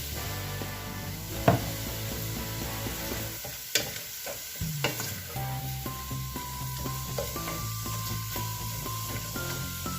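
Food sizzling in a frying pan while it is stirred, with a few sharp clinks of the utensil against the pan.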